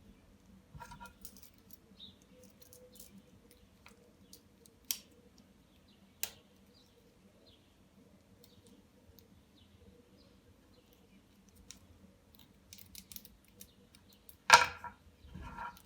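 Scattered small clicks and handling sounds of leatherworking tools and hardware on a work surface, with two sharper clicks in the middle and a louder clatter near the end.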